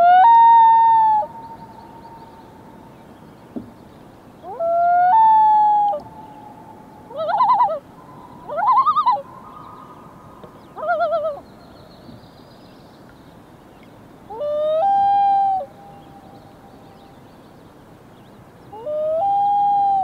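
Common loons calling. There are four short wails, each sliding up and holding one note for about a second. In the middle come three quick wavering calls.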